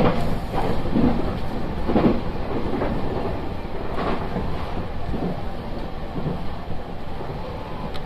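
Nankai electric train running at speed, heard from inside the car: a steady rumble with wheel clacks over rail joints about once a second.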